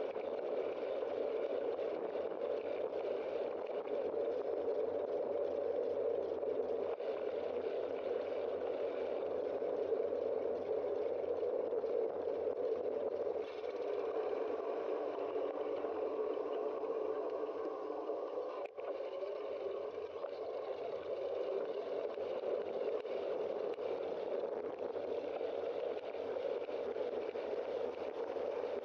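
Steady rush of wind and road noise on a bicycle-mounted camera's microphone while riding along a street.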